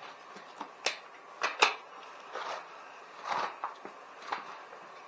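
Handling noises from parts and tools being moved about: a few sharp clicks and knocks, the loudest about a second and a half in, with softer rustling scrapes between them.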